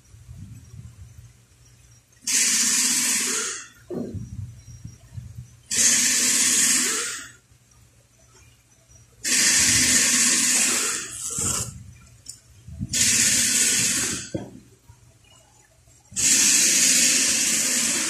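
Masking tape being pulled off the roll in five long strips, each a rough ripping hiss of about a second and a half, with soft handling knocks between pulls.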